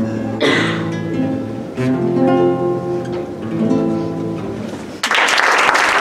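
Acoustic guitar playing the closing chords of a song, several strummed chords left to ring. About five seconds in, the audience breaks into applause.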